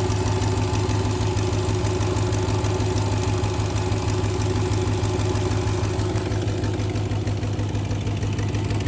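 Car engine idling steadily with an even, pulsing beat, offered as a warning sign of trouble.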